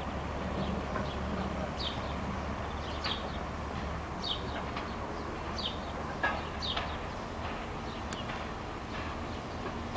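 A small bird chirping: short, high, falling chirps about once a second. Under them is the low, steady rumble of a diesel railcar approaching slowly.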